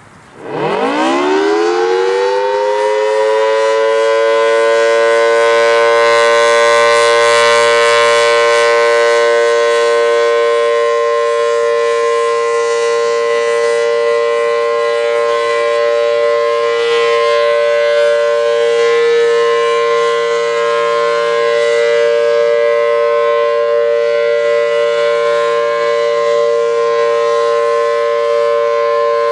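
Federal Signal Thunderbolt 1000T 4/5-port outdoor warning siren winding up from a standstill, its pitch climbing steeply for about three seconds, then sounding a loud, steady two-tone chord. It is being sounded for a test.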